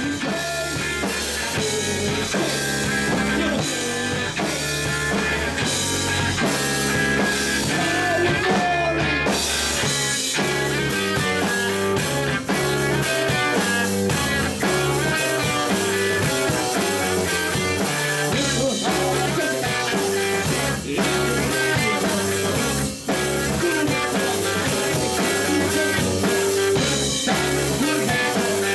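Live rock band playing: electric guitars over a steady drum-kit beat, continuous and loud.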